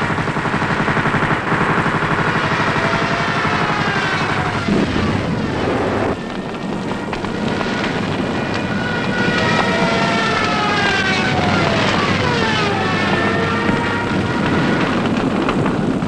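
Propeller aircraft engines droning, several pitches sliding slowly down and back up as the planes dive and pass, over a steady low rumble.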